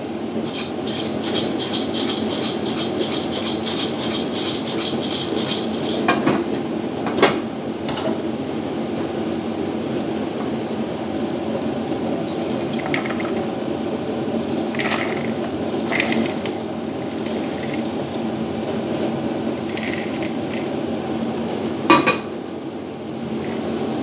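Stainless-steel cooking pot of popcorn on a gas stove. For the first several seconds there is a dense run of rapid clicking from the pot, then a few clanks as it is lifted. Popcorn is tipped and scraped into a plastic bowl, and about 22 seconds in the pot is set back down on the grate with one sharp metal clunk, all over a steady hum.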